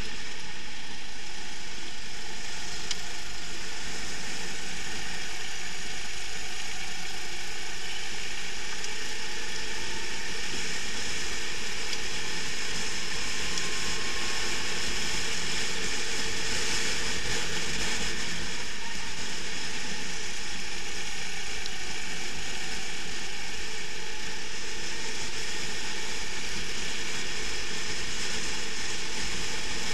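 Racing kart's engine running at speed on track, heard from the kart's onboard camera as a steady, dense mechanical hash with a rattle over it and a pitch that drifts faintly up and down.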